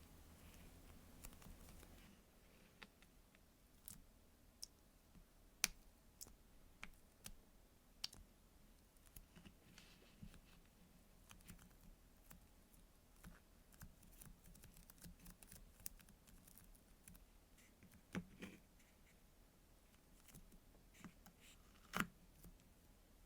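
Faint handling of soft foam squishy toys: irregular small clicks, taps and scratches from fingers and nails, with a few sharper clicks about 6, 8, 18 and 22 seconds in.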